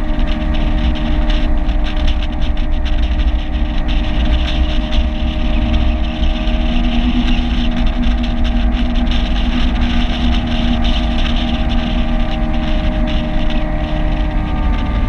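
Outboard motor of a small aluminum fishing boat running steadily under way, a constant engine drone, with wind buffeting the microphone.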